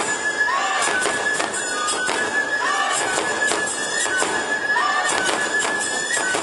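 Traditional neputa festival music (hayashi) played live: drums and hand cymbals struck in a steady rhythm under a held high flute note, with a rising-and-falling phrase returning about every two seconds.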